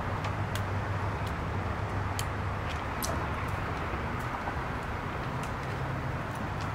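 Small scissors snipping pothos vine stems and leaves: repeated short, sharp clicks spread unevenly through, over a steady outdoor background rumble.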